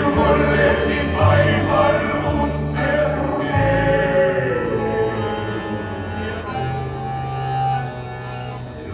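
Live band music with voices singing over held bass notes that change every second or so.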